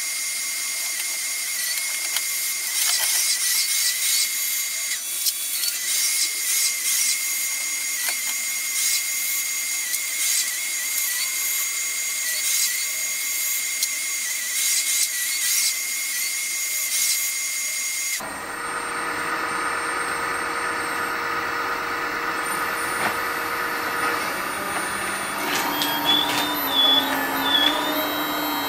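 Hydraulic system of a radio-controlled model excavator with a scrap grapple running: a steady high whine with scattered clicks. About two-thirds of the way through the sound changes abruptly to a fuller, lower mechanical running, with tones rising and falling near the end as the machine works.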